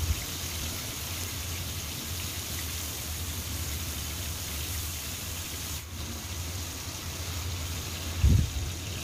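Pieces of salted fish frying in hot oil in a wok, a steady sizzle over a low steady hum. Near the end there is one low thump as the fish is turned with tongs.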